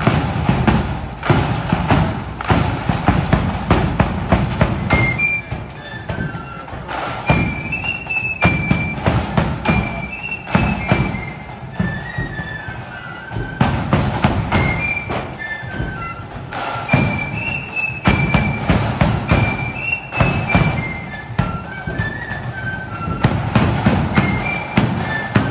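Marching flute band playing: snare and bass drums beating out a march, with a high flute melody coming in about five seconds in.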